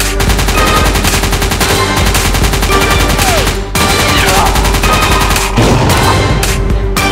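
Rapid machine-gun fire sound effect: a dense stream of shots that breaks off briefly about three and a half seconds in, then carries on, over dramatic soundtrack music.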